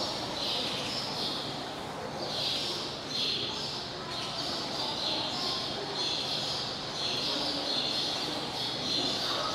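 Birds chirping in short repeated phrases, about one a second, over a murmur of people's voices.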